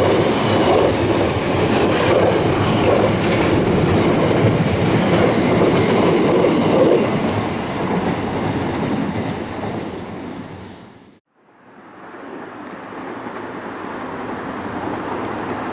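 A train running along the track, its wheels clattering over the rails, loud at first and then dying away. The sound cuts out about eleven seconds in, then a quieter rail rumble resumes.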